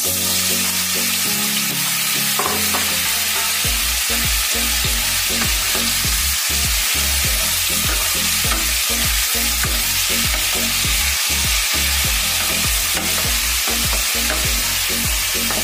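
Button mushrooms sizzling steadily as they fry in hot refined oil in a nonstick kadai, stirred with a spatula.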